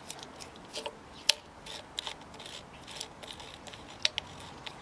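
Small metallic clicks and light scraping as the metal dial wheel of a Kaba Mas S2000 electronic safe lock is handled and turned on its circuit board, being tried for its timing position. The sharpest click comes about a second in, another near the end.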